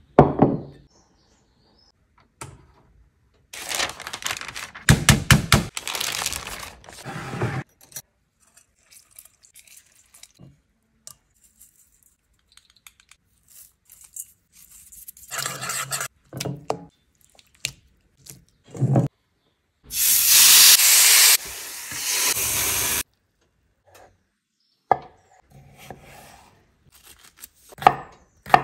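Food-preparation sounds in a series of short separate clips: thumps, knocks and rustling, then a few seconds of steady hiss, then a kitchen knife slicing cucumber on a wooden chopping board near the end.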